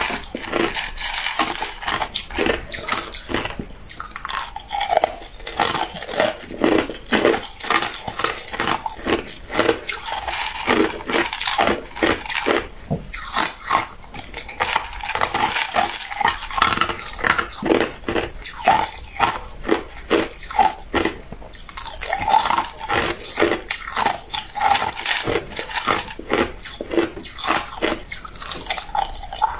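Hard clear ice cubes crunched and chewed between the teeth, crunches coming several a second with short pauses, and ice clinking against a glass bowl as cubes are picked out.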